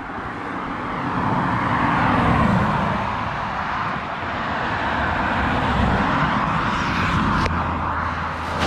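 Motor vehicle on the road, with a low engine hum under a steady rush of wind and road noise that swells and eases a little.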